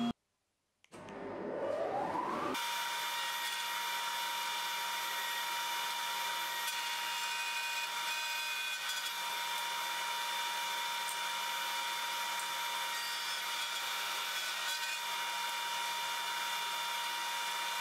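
Table-mounted router motor spinning up with a rising whine, starting about a second in, then running steadily at full speed while a piece of wood is fed past the bit.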